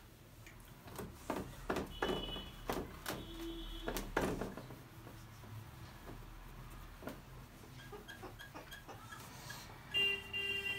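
Whiteboard being wiped clean by hand: a run of quick rubbing strokes across the board, busiest in the first few seconds, with a few brief squeaks. A short high-pitched sound comes near the end.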